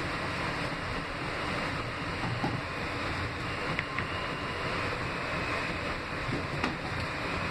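Inside an R160B subway car in motion: a steady rumble and rush of the train running on the rails, with two sharp ticks, about four seconds and six and a half seconds in.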